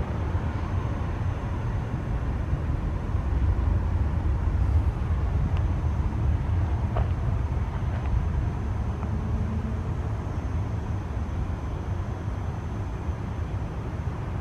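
Airbus A320's twin IAE V2500 turbofan engines heard as a deep rumble as the airliner rolls out after touchdown, swelling a few seconds in and then slowly fading as it moves away down the runway.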